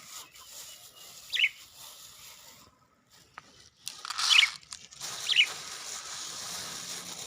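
Budgerigars giving short, sharp chirps, three of them spaced over several seconds, with a soft hiss behind them in the second half and a single faint click midway.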